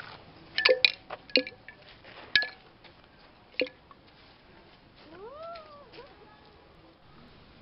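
Coins dropped a few at a time into a clear plastic container of water, making several sharp clinks over the first four seconds. About five seconds in a cat meows once, a rising and falling call.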